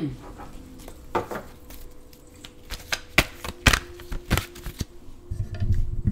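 A tarot deck being handled and shuffled by hand: a string of sharp card clicks and snaps, irregularly spaced, with a low muffled rumble near the end.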